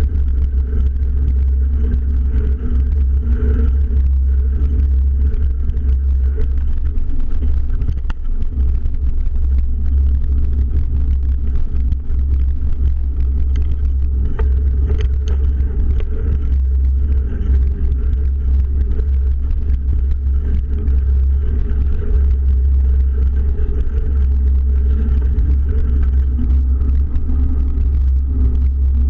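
Wind buffeting the microphone of a camera on a bicycle coasting downhill, a loud, steady low rumble, with the tyres rolling on a dirt and gravel road underneath and a few faint clicks.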